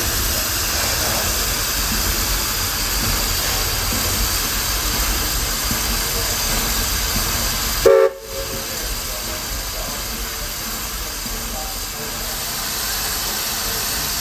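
1916 Baldwin steam locomotive, Walt Disney World Railroad No. 4, hissing steam steadily. About eight seconds in, a brief whistle note is cut off abruptly.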